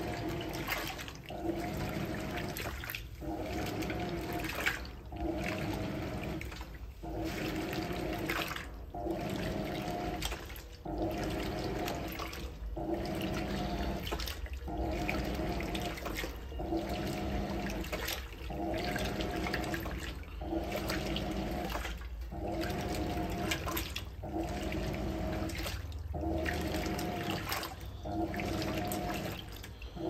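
Hoover Electronic 220m top-loading washing machine agitating in its main wash. The motor hums with a steady tone through each stroke over water and clothes sloshing. Short breaks come about every two seconds, an even back-and-forth rhythm.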